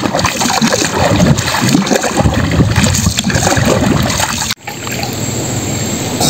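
Wooden paddle stroking through river water beside a wooden boat, irregular splashing and gurgling. About four and a half seconds in it cuts off suddenly to a steadier, quieter background with a thin high steady tone.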